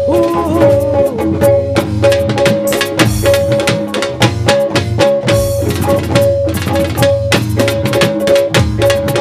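Instrumental break of a live band: fast, dense drum strokes over a single high note repeated in a steady stuttering pulse, with a low bass underneath and no singing.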